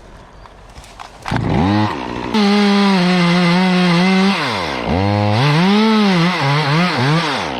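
Two-stroke chainsaw revving up about a second in and held at high revs, its pitch dropping sharply toward idle around the middle before it is revved again with the revs rising and falling, as when bucking wood.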